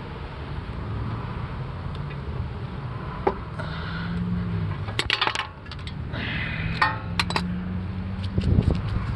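Metal clinking and clattering: a sharp clink about three seconds in, quick clusters of clinks around five and seven seconds, and another near the end, over a low steady hum.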